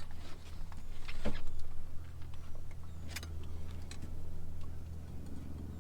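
A few sharp clicks and rattles from handling a hand-held fish scale and its hanging net, over a steady low rumble.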